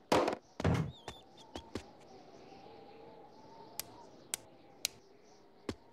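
A telephone receiver is set down with a clunk, followed by a few knocks. Later comes a series of sharp, bright taps, about two a second, as a small tool pecks at the ice of a frozen toilet bowl. A faint wavering whistle lies underneath.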